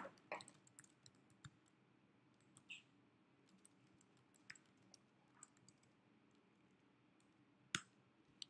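Faint, scattered keystroke clicks on a computer keyboard as a line of code is typed, with a sharper click near the end.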